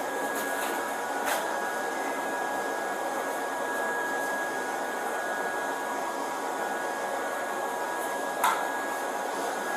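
Steady fan-like rushing noise with a faint high whine, broken by a light click about a second in and another near the end.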